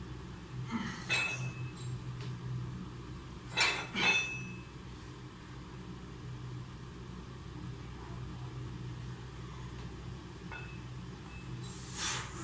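Iron weight plates clinking on a barbell's sleeves during curl reps, with the sharpest metallic clinks about three and a half and four seconds in, over a steady low hum.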